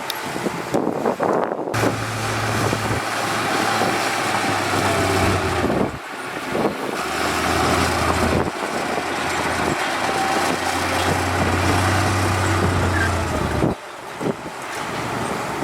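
Diesel engines of heavy earthmoving machinery running, with a steady low hum under a rough mechanical noise. The sound changes abruptly about 2, 6 and 14 seconds in.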